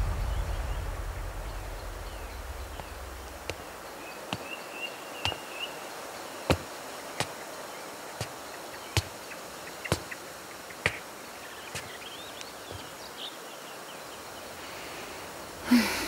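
A low music tail fades out over the first few seconds. Then comes quiet outdoor ambience with faint birds chirping, and a string of sharp footsteps on a stone floor at a slow walking pace, about one a second.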